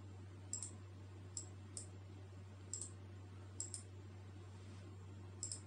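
Computer mouse button clicks, about eight, short, sharp and irregularly spaced, faint over a steady low electrical hum.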